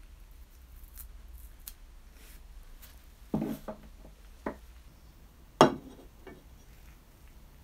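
Brass corkscrew and bottle opener being handled and set down on a wooden tabletop: a few faint clicks, then three sharp knocks, the last the loudest, with a short metallic ring after the first and last.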